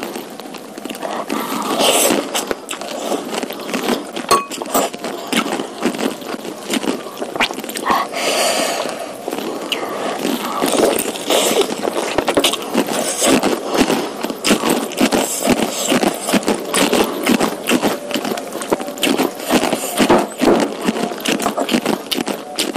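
Close-miked eating sounds: rapid wet chewing and mouth clicks while eating noodles and beef meatballs, with a few short noisier smacks or slurps.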